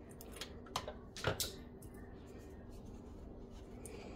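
Handling noises from hot-gluing: a few sharp knocks and rubbing, the loudest about a second in, as a hot glue gun is worked and set back down on a granite countertop.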